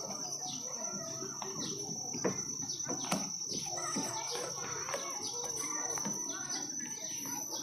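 Birds chirping in quick short falling calls over faint chatter of people, with a few sharp clicks and a steady high-pitched hum.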